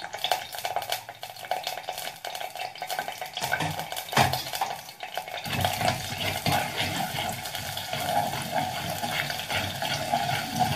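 Chopped shallots sizzling in hot oil while a spoon stirs them and scrapes and taps against the pan, with one louder knock about four seconds in.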